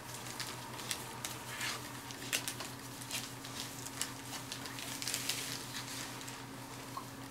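Newspaper bedding rustling and crinkling in short, scattered bursts as a mother dog and her newborn puppies shift about on it, over a steady low hum.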